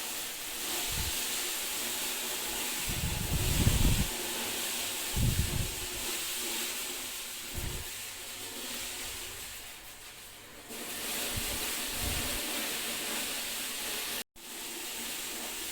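A steady hiss with several short, low thumps scattered through it. The sound drops out briefly near the end.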